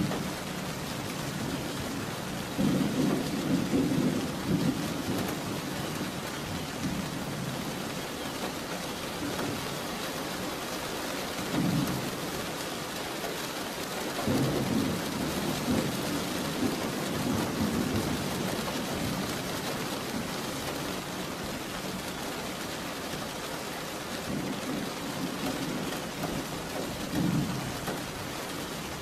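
Steady rain with thunder rumbling low about four times, the longest roll near the middle.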